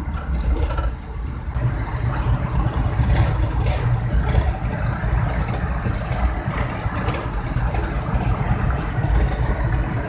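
Steady road noise inside a car driving at speed: a low engine and tyre rumble with rushing wind.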